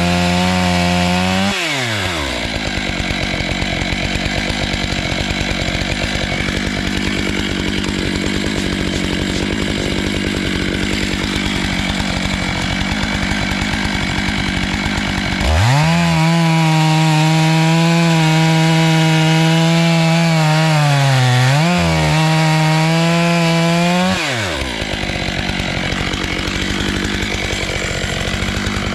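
Stihl MS 661 chainsaw with a 20-inch bar at full throttle, crosscutting black walnut log into cookies. The engine alternates between working under load in the cut and a high, clear free-revving whine: once near the start, and again for about eight seconds from halfway in, with a brief dip partway through.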